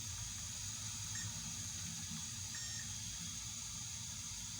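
Steady hiss with a low hum underneath: workbench background noise. Two faint, short high tones come through, one about a second in and one just past the middle.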